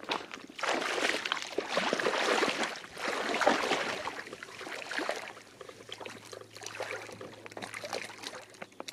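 Legs wading through shallow water over a pebbly seabed, with irregular splashing and sloshing at each step, close by; the splashing eases after about five seconds. A faint low hum joins near the end.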